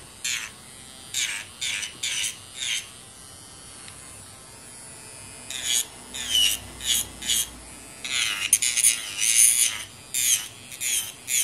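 Electric nail drill filing gel off fingernails in short repeated passes, each touch of the bit a brief high-pitched grinding buzz over the motor's faint steady whine. A pause about three seconds in, then quicker, closer passes near the end. The bit is too fine to grab and pull the gel layers off well.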